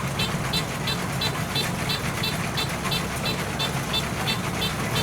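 Kubota DC-93G rice combine harvester running steadily with a low diesel hum, waiting to start cutting. Over it comes a regular high chirp, about three a second.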